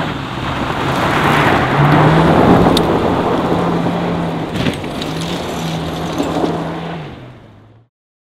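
A Lada saloon's four-cylinder engine running at a fairly steady pitch as the car slides away on loose gravel, with a hiss of spraying grit that is loudest about two seconds in. The sound fades out near the end.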